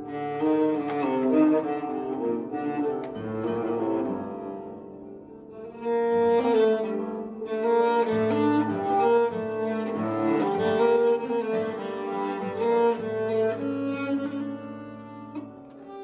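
Bass nyckelharpa bowed in a cello-like range, playing a slow folk tune with acoustic guitar accompaniment; the music eases off a few seconds in and swells again about six seconds in.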